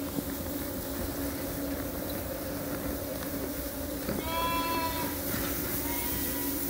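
A lamb bleating once about four seconds in, then a shorter, fainter bleat near the end, over a steady low hum.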